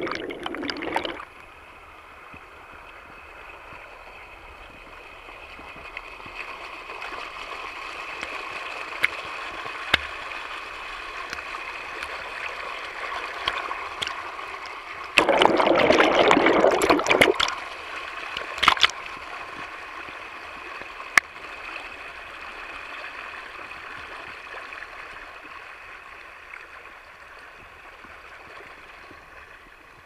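Shallow stream water rushing and trickling over rocks right at the waterproof camera's microphone, a steady rush with scattered little ticks and splashes. A muffled underwater gurgle cuts off about a second in, and about halfway through a louder, fuller gush lasts around two seconds.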